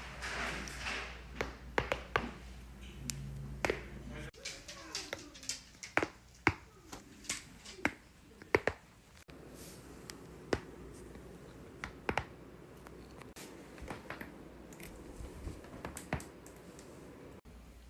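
Joints being cracked: a string of sharp single pops and clicks, some in quick pairs, at irregular gaps of about half a second to two seconds.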